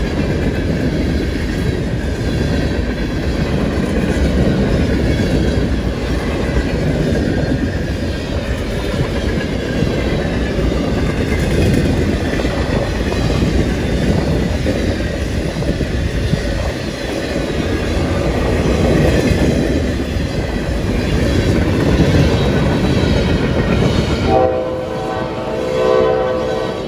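A long CSX freight train's cars rolling past at about 45 mph: a steady heavy rumble with wheel clatter over the rail joints. Near the end the rumble cuts off and a locomotive horn sounds, a chord of several tones held for about two seconds.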